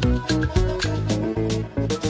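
Upbeat background music with a steady drum beat and melodic pitched notes.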